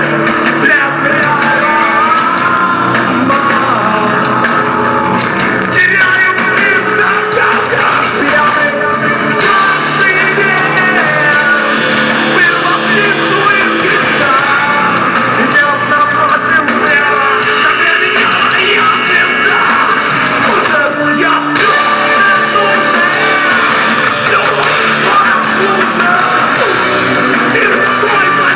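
Loud rock music with a singing voice over instruments.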